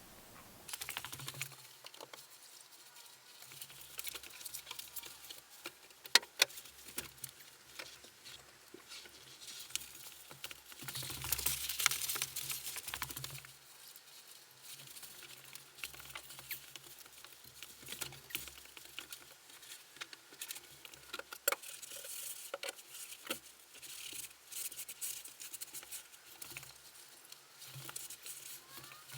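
Household cleaning noises: scattered small clicks, taps and rustling from handling things and wiping surfaces, with a longer hissing stretch a little before halfway and a couple of sharper clicks about six seconds in.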